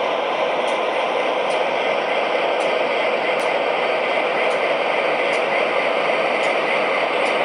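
O gauge model diesel locomotive's onboard sound system playing a steady diesel idle through its small speaker, heard as an even, hissy engine noise with no deep bass and a faint high tick about once a second.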